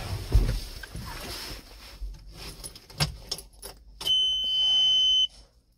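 Keys rattling and a few clicks and knocks as the tractor's ignition key goes in, then about four seconds in the big Ford tractor's cab warning buzzer gives one steady high beep, about a second long, which cuts off suddenly as the ignition is switched on before cranking.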